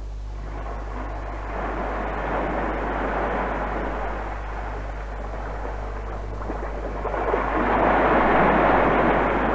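A rushing, wind-like noise that swells twice, the second surge louder near the end, over a steady low hum from the old reel-to-reel tape.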